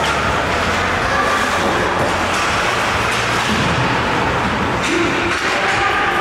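Steady, noisy din of an ice hockey rink during a game, with no single sound standing out.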